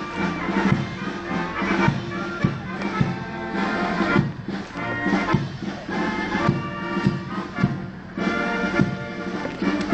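Live brass band playing a march, with sustained brass chords and repeated drum strokes.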